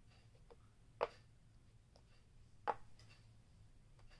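Hand moving pom-pom markers on a laminated board: two sharp taps, about a second in and again near three seconds, as markers are set down, with a few fainter ticks between.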